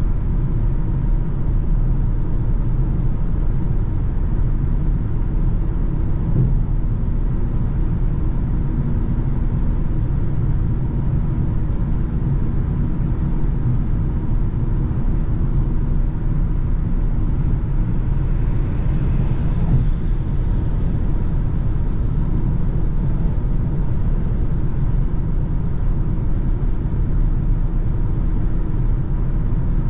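Steady low rumble of engine, tyre and road noise inside a BMW car's cabin while it cruises at motorway speed.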